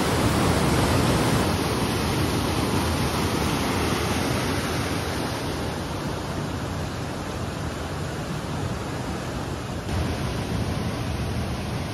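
Mountain stream rushing: white water cascading over granite boulders into a pool, a steady loud rush of water.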